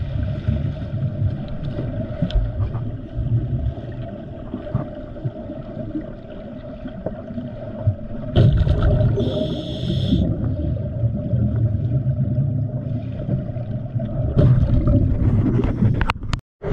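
Underwater sound of a diver breathing through a regulator on hose-fed air: a constant low rumble and hum with bubbling gusts of exhaled air, and a hissing inhalation lasting about two seconds a little past the middle. The sound cuts out for a moment near the end.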